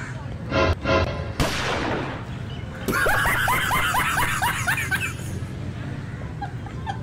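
Comedy sound effects edited in: two short musical stabs about half a second in, then a whoosh. From about three seconds in comes a rapid run of falling cartoon chirps, about five a second, lasting two seconds.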